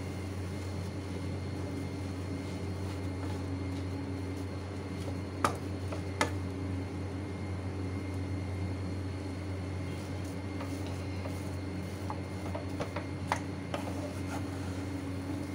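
A spatula stirring and scraping a crumbly coconut ladoo mixture in a frying pan, with two sharp knocks of the spatula against the pan about five and six seconds in and a few lighter taps later. A steady low hum runs underneath.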